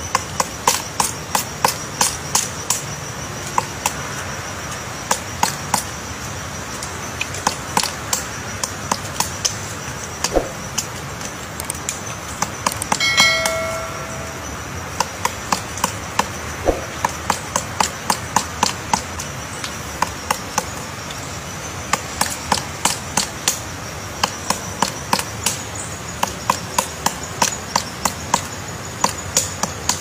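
Pileated woodpecker chiselling into a tree trunk to dig out its nest cavity: sharp strikes on wood, about three or four a second, in bouts with short pauses between. About 13 seconds in, a brief bright chime rings out.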